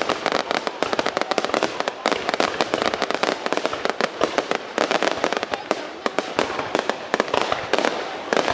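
Aerial fireworks bursting overhead in a dense, continuous run of sharp cracks and bangs, several every second, with crackling in between.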